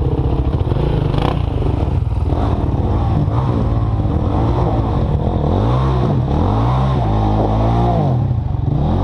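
Dirt bike engines revving, the pitch rising and falling over and over from about halfway through, above a steady low engine drone.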